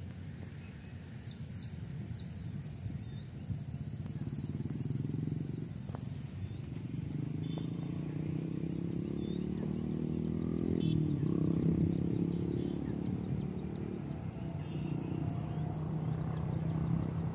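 Emirates Boeing 777-300ER on approach to land, its two GE90 turbofans a low drone with shifting tones that slowly grows louder as the airliner nears. A few bird chirps come about a second in.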